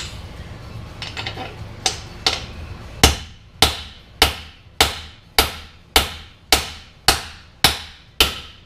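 Hammer blows driving a pinion bearing race into a Chevy 8.6 rear axle housing through an aluminum race-driver puck. A few light taps come first, then about ten hard, ringing strikes at a steady pace of almost two a second.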